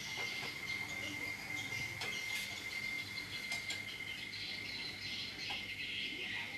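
Insects chirring steadily in one high, unbroken tone, with a few light clinks of cookware.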